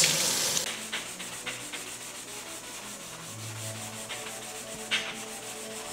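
Scrub Daddy sponge scrubbing a metal kettle coated in cleaning paste: a steady rubbing and scraping, after a running tap cuts off about half a second in. A single light knock near the end.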